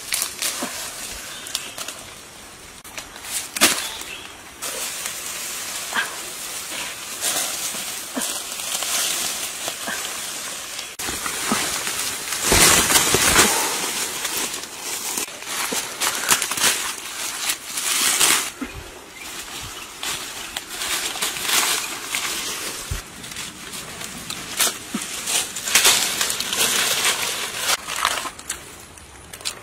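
Lychee tree leaves and twigs rustling and crackling irregularly as branches are pulled and bunches of fruit are picked, with a louder stretch of rustling about halfway through.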